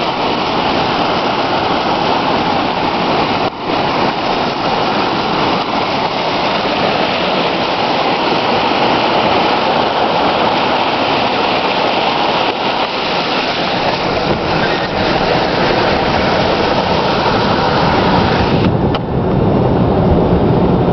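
Truck driving through deep floodwater: a loud, steady rush of water spraying and churning around the tyres and body. From about two-thirds of the way through, a low engine rumble comes up, and near the end the water hiss eases.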